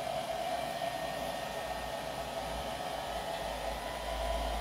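Handheld hair dryer blowing steadily to dry freshly applied black acrylic paint: an even rush of air with a steady mid-pitched motor whine.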